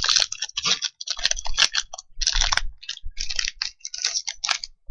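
Foil Yu-Gi-Oh booster pack wrapper crinkling as it is torn open, in quick, irregular crackling bursts.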